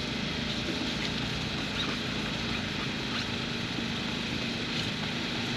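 Steady engine hum, with faint scattered rasps of 2000-grit wet sandpaper rubbed by hand on a plastic headlight lens.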